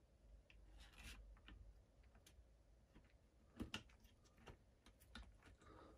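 Faint clicks and taps of hard plastic RC truck chassis parts being handled and pressed into place, with two sharper clicks together a little past halfway.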